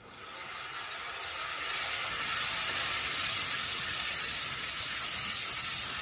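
Blade of a homemade bandsaw mill running around its band wheels: a hiss that builds over the first couple of seconds as the wheels spin up, then holds steady. The blade is tracking on the wheels but is not fully tensioned and wobbles.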